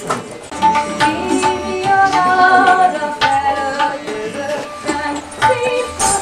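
Tabla being played in Indian classical style: sharp, irregularly spaced strokes under a melody line that bends and slides in pitch.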